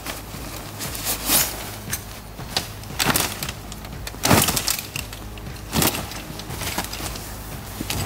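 Tidewe pop-up hunting ground blind being pulled from its carry bag and opened, its fabric rustling and flapping in several loud, irregular swishes as it unfolds.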